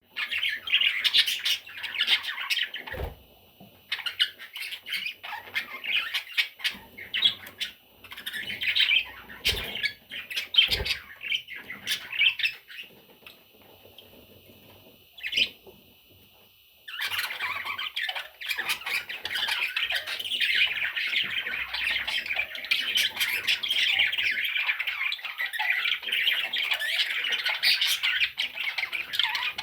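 Budgerigar chicks squawking in a dense, continuous chatter. The chatter breaks off for a few seconds about halfway, then resumes without pause. A few short knocks sound in the first part.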